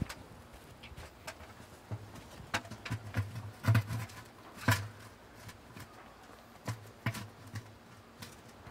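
Irregular hollow plastic knocks and clunks of a submersible pond pump and its PVC union fitting being handled and seated inside a plastic pond skimmer housing. The loudest knocks fall around four to five seconds in.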